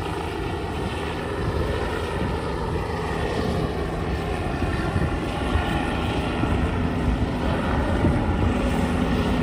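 Light helicopter flying overhead: steady rotor chop with turbine engine noise, gradually growing louder.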